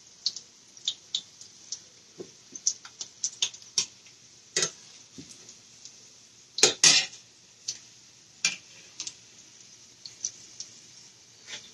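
Metal slotted spatula clinking and tapping against a stainless steel pot while turning and lifting salmon patties frying in oil: irregular sharp clicks, a few louder ones in the middle, over a faint hiss of frying oil.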